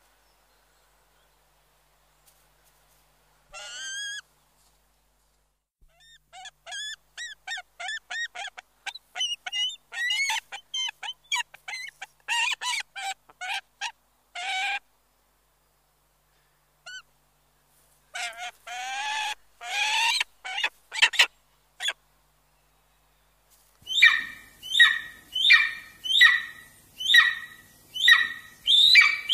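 Bird calls: after a few seconds of quiet, scattered bursts of short, quick calls, then near the end a loud call repeated about three times every two seconds, each one falling in pitch.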